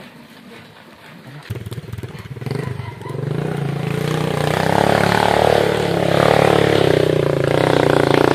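Small motorcycle engine pulling away about a second and a half in, its sound building over the next few seconds and then running steadily.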